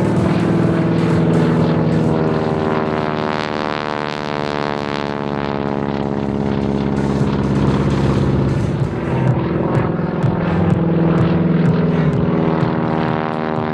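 Propeller aerobatic plane's piston engine running steadily overhead, its pitch shifting slowly as the plane manoeuvres.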